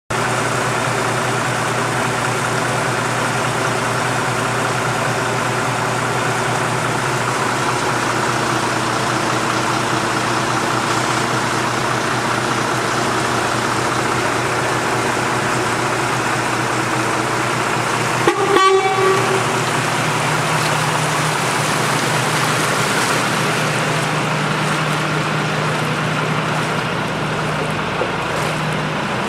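Steady loud rushing noise with a low engine-like hum, and a short vehicle horn toot about two-thirds of the way in.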